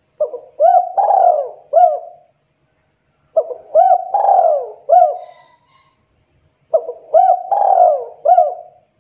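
Spotted dove cooing: three phrases of several notes each, a few seconds apart.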